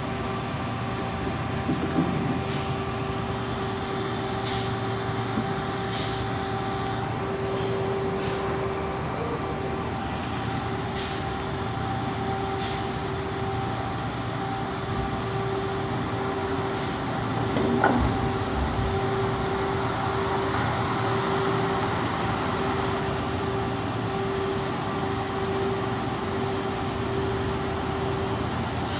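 Steady machinery drone with a constant hum on a ferry's vehicle deck, joined in the second half by a heavy lorry's engine as it drives forward onto the deck. Short hisses recur every couple of seconds in the first half, and a single knock sounds about 18 seconds in.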